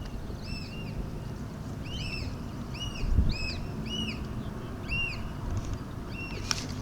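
A bird calling in a rapid series of short, arched, whistled chirps, about two a second and sometimes overlapping, over a steady low rumble. A dull knock sounds about three seconds in.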